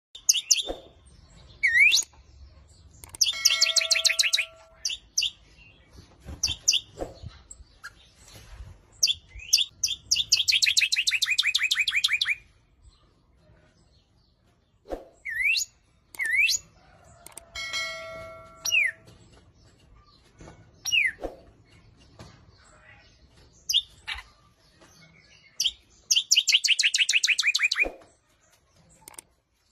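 Aviary finches and lovebirds calling: sharp sweeping chirps mixed with buzzy, rapidly repeated trills lasting a second or two, in bursts with short pauses between.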